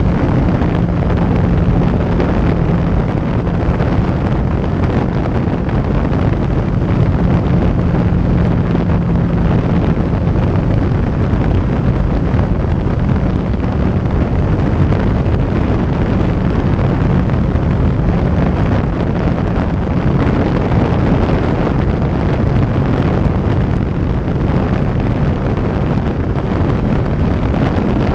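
Wind rushing over the microphone of a sport motorcycle at road speed, with the engine's steady hum underneath.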